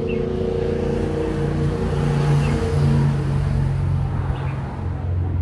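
A motor vehicle's engine running steadily, a low hum holding an even pitch. A few faint bird chirps come over it.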